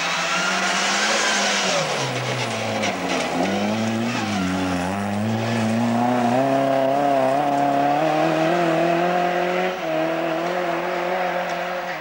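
Rally car's engine at speed on a gravel forest stage. Its note falls for the first few seconds, then climbs from about three seconds in and holds high as the car accelerates away, with a short dip about ten seconds in at a gear change. The tyres hiss on the gravel in the first two seconds.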